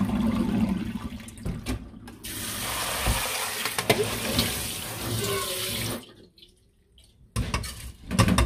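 Barley being rinsed under a kitchen tap in a stainless steel colander in a sink: water running and splashing, loudest for about four seconds in the middle, then cut off. A few sharp clicks and knocks near the end as the washed grain is moved into a pot.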